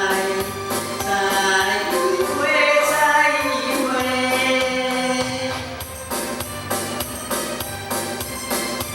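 A man singing over a backing track with a steady drum beat, amplified through a classroom sound system that is being tested. The singing stops about six seconds in and the accompaniment carries on.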